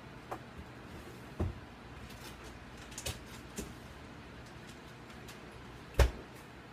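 Kitchen handling sounds from a metal spoon and a jar of Alfredo sauce over a pizza pan: a few light clicks and knocks, then one much louder knock about six seconds in.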